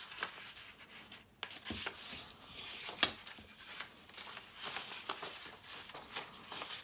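Sheets of construction paper and a cut-out paper letter being handled on a table: rustling and sliding paper, with a couple of sharper taps.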